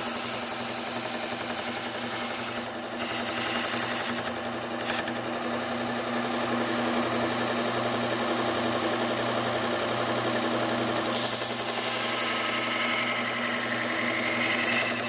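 Bucktool low-speed belt sander running with a Cubitron 120 abrasive belt, a steel hunting-knife blade ground against it to set the edge. Under a steady motor hum, the grinding hiss dips briefly a few times in the first five seconds and is strongest from about a third of the way in to about two-thirds through.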